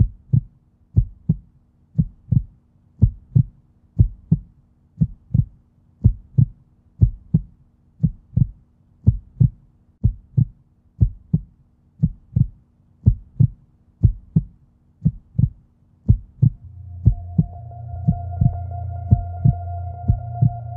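Heartbeat sound effect: paired low lub-dub thumps, about one beat a second, steady throughout. From about three-quarters of the way in, a steady low drone and a held higher tone join beneath it.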